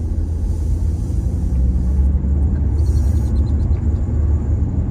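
2002 Ford Ranger pickup on the move: a steady low rumble of engine and road noise.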